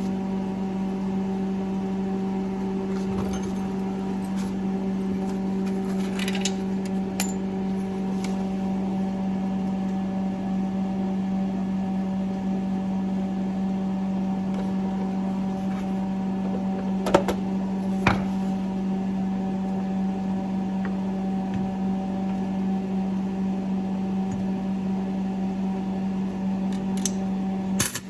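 Stick welder switched on and idling with a steady electrical hum, ready to weld. A few sharp clicks stand out, two of them a second apart past the middle.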